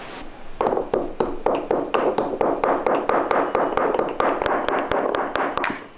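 Stone pestle pounding dry-roasted black peppercorns and cumin seeds in a stone mortar, crushing them to powder. The strikes are sharp and even, about four a second, starting about half a second in.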